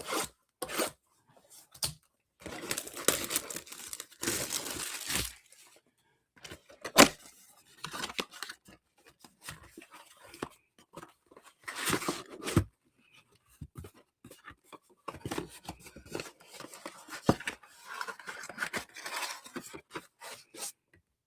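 A sealed trading-card box being torn open: plastic shrink wrap and cardboard tearing in long rasps, with crinkling, and a few sharp knocks as the packs are handled.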